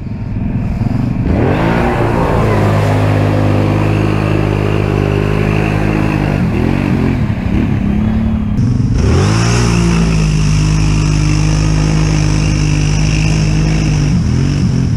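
ATV engines revving hard, churning through a deep mud hole, the pitch dropping and climbing again a few times as the throttle is eased and opened.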